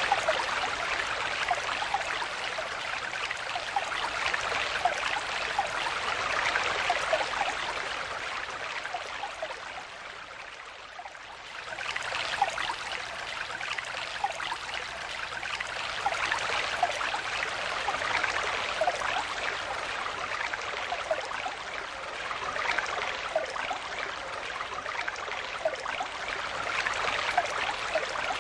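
Stream water flowing steadily, a continuous rush with small gurgles and plinks scattered through it. About ten seconds in it dies down, then comes back abruptly to full level a second or so later.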